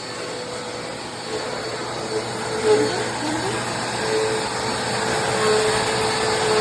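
Dirt Devil Endura Lite bagless upright vacuum cleaner running steadily, its motor giving a constant whine over a rushing airflow noise.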